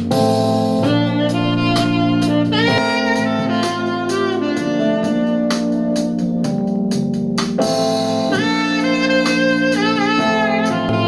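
Jazzy instrumental music with a saxophone lead and a steady drum beat, played back through a small portable Bluetooth speaker and picked up by a microphone.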